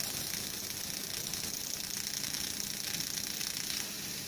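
500 W fiber laser cutting head piercing and cutting 5.5 mm black steel plate: a steady high hiss of the assist-gas jet with a fast fine crackle of the cut, easing off a little near the end as the cut stops.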